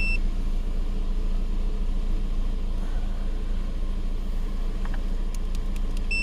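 2011 Kia Sorento's engine idling steadily, with a short electronic beep right at the start and a few faint clicks near the end.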